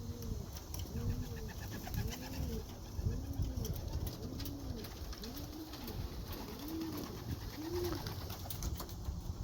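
Racing homer pigeon cooing, a steady run of about eight coos, each rising then falling in pitch, roughly one a second.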